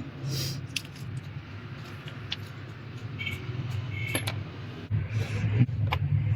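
A steady low hum, with scattered sharp clicks and a few brief light metallic clinks.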